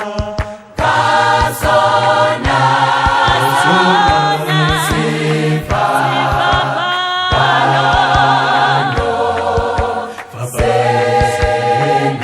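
Gospel choir singing a Sesotho hymn in harmony over a steady beat of short percussive strikes, with brief breaks between phrases about half a second in and near the end.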